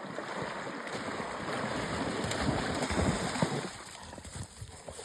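A dog splashing through shallow river water, an irregular sloshing and churning that builds for about three seconds and then eases off.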